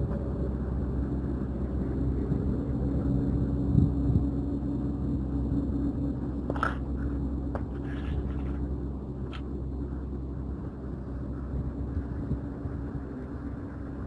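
Steady low outdoor rumble with a faint hum, with a few short faint clicks around the middle.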